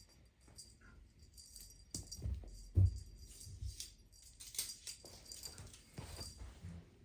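A cat toy jingling and rattling in irregular shakes as the kittens bat it about, with a few soft thumps, the loudest nearly three seconds in.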